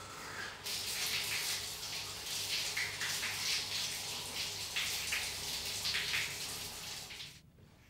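Water running from a tap, splashing unevenly; it starts about a second in and stops suddenly near the end.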